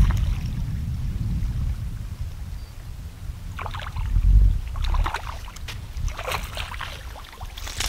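Wind buffeting the microphone, with a gust about four seconds in. From the middle on come several brief crackly sounds, the last and loudest near the end.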